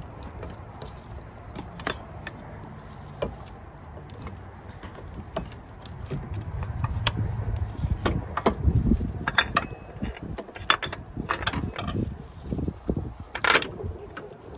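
Metal upper motor mount bracket and bolts being handled and fitted by gloved hands: scattered clicks and metal clinks with rubbing and handling noise, getting busier and louder about halfway through.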